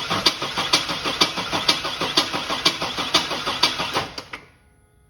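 A 2001 Chevy S10's 4.3L Vortec V6 cranking on the starter without catching, with an even beat of about four compression pulses a second, until the key is released about four seconds in. This is a no-start in which fuel pressure drops while cranking, a typical sign of a weakening fuel pump.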